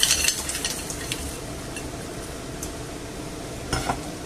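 Frozen mixed seafood tipped from a glass bowl into a pan of boiling tomato and potato stew: a clatter of pieces landing at the start, then a steady sizzle and bubble from the pan. A couple of light knocks near the end.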